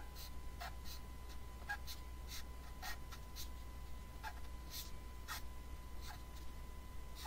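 Pen scratching on paper in short, irregular drawing strokes, about two a second, over a faint steady electrical hum.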